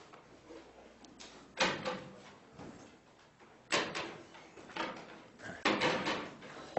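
Loud knocks and bangs about every two seconds, each with a short echo in the room, over faint murmuring, as people pack up and leave after a lecture.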